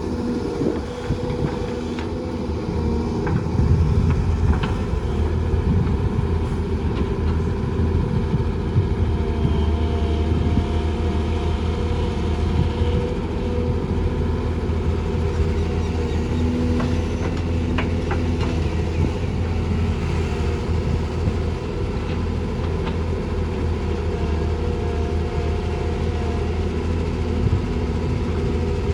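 Diesel engines of an excavator and dump trucks running steadily with a low drone, with a few faint knocks now and then.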